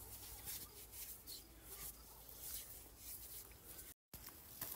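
Faint scratchy rubbing of hands working a white chalky powder, a string of short strokes. The sound cuts out completely for a moment near the end.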